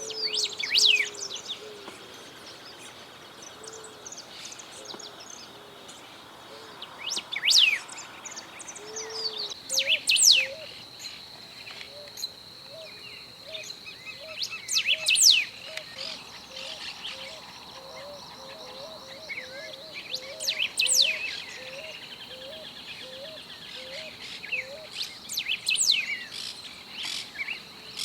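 Golden-billed saltator singing: short, loud phrases of quick sweeping whistles, repeated about every three to five seconds. Behind them, a steady high insect buzz sets in about a third of the way through, and a long run of soft, low, evenly spaced notes from another animal.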